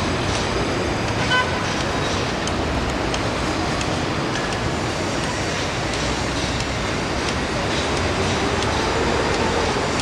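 Steady city traffic noise, with a brief high beep about a second and a half in.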